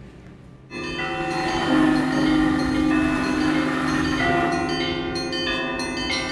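Russian Orthodox church bells ringing. They start suddenly about a second in, and a deep bell's long steady hum sits under higher bells that are struck again several times in the second half.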